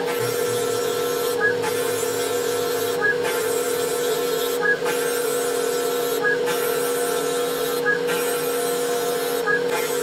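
Spindle of a small 3040 Chinese CNC mill running steadily with a steady whine while its end mill cuts slots into a wooden door blank, a rasping cutting noise. A short break in the cutting noise recurs about every second and a half.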